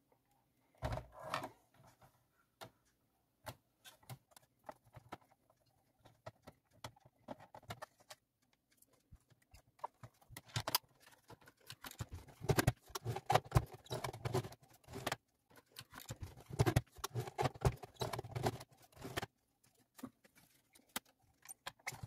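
Plastic housing of a Xiaomi Mi Robot Vacuum 1S being unscrewed and pried apart by hand: scattered light clicks and knocks of a screwdriver and plastic parts. About halfway through there is a busier stretch of plastic clattering and rattling as the top shell is worked loose and lifted off.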